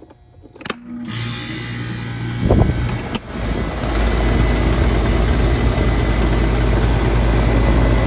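Goodman heat pump outdoor unit starting up: a click about a second in, then a steady hum. A few seconds in the condenser fan spins up, and the unit settles into a steady, loud run, with the fan turning with a wobble.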